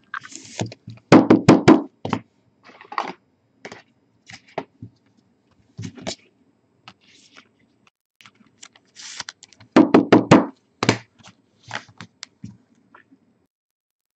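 Trading cards being slid into rigid plastic top loaders and the loaders handled and knocked on a tabletop: two bursts of rapid plastic knocks, about a second in and again near ten seconds, with lighter clicks and scrapes between.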